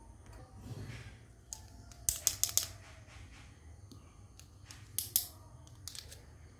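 Small plastic toy spoons and forks clicking and clattering together as they are handled and set down: a quick run of about four clicks some two seconds in, and another couple about five seconds in.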